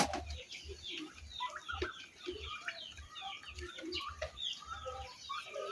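A flock of chickens clucking and cheeping, with many short overlapping calls throughout. One sharp knock sounds right at the start.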